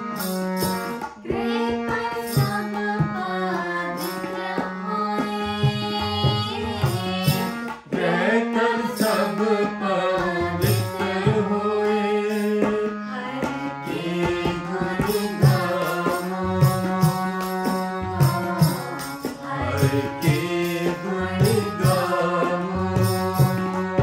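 Sikh kirtan: a shabad sung with harmonium and tabla, the harmonium holding sustained chords and the tabla keeping a steady beat under melodic singing.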